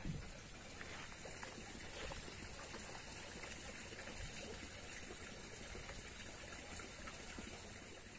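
Faint, steady trickle of creek water, with a few light ticks.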